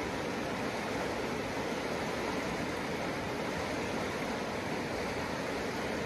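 A river running high and fast with runoff: a steady rush of water.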